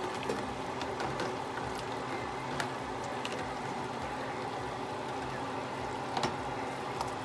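Wooden spoon stirring thin, watery khichuri in a pot, the liquid sloshing, with a few light knocks of the spoon against the pot over a steady background hum.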